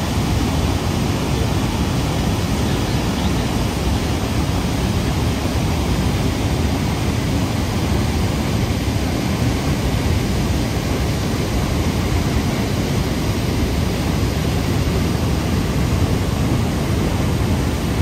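Niagara Falls' steady, loud rush of falling water: a dense, even noise with no breaks.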